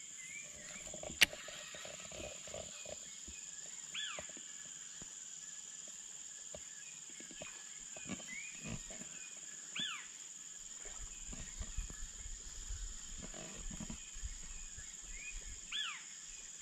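Natural outdoor ambience: a steady high insect drone, and a two-note animal call (a short rising note, then a quick high note that swoops up and down) that repeats about every six seconds. A sharp click about a second in, with scattered soft knocks and rustles.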